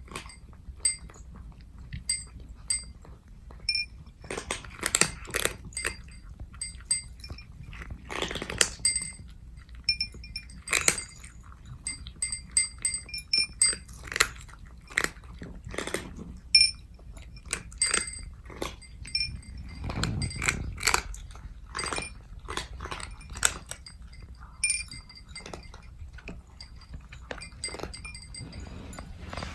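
Bombay cats crunching dry kibble, a quick irregular run of crunches with light clinks among them.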